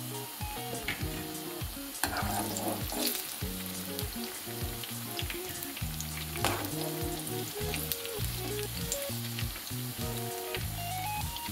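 Plantain fritters (kaklo) sizzling as they deep-fry in hot oil, with a few sharp clicks as a metal mesh skimmer turns them against the pan. Background music with low sustained notes plays alongside.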